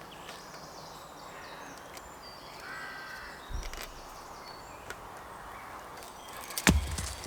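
Quiet woodland background with a few short bird calls, and a single sharp knock near the end.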